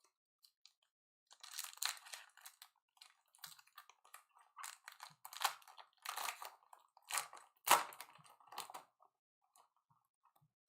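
Wrapper of a Mosaic football card pack crinkling and tearing in irregular crackly bursts as the pack is opened and the cards handled. The loudest burst comes about three-quarters of the way through.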